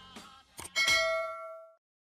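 Subscribe-button animation sound effect: two short mouse clicks, then a bell ding about a second in that rings out and fades away.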